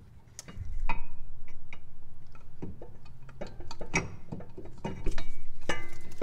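Inner tie rod removal tool being fitted over the tie rod onto the power steering rack: irregular metal clicks and clinks, several a second.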